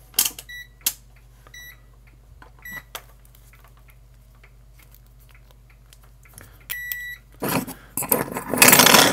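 Continuity tester beeping: three short beeps about a second apart, then a longer beep, each sounding when the probes find a connection. Near the end, loud rustling and scraping as the circuit board is handled.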